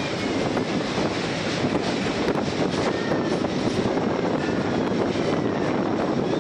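Passenger train running across a steel truss railway bridge: a steady, dense rumble of wheels on rail with a few faint clicks.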